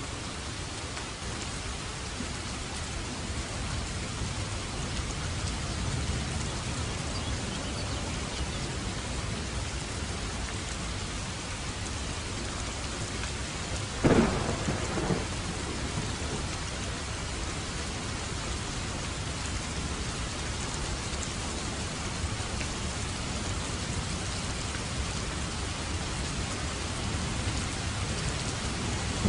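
Steady rain falling, with a sharp crack of thunder about halfway through that rumbles off over a second or two.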